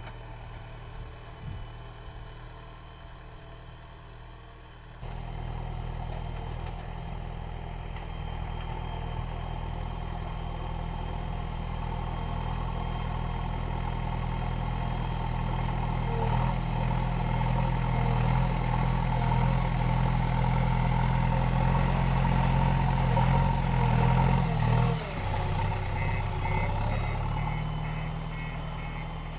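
JCB 3DX backhoe loader's diesel engine running, louder after about five seconds and climbing steadily as it works, then easing back about 25 seconds in. A reversing beeper starts near the end.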